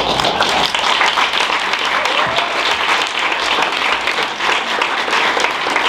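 Audience applauding: many hands clapping together, breaking out suddenly and holding steady.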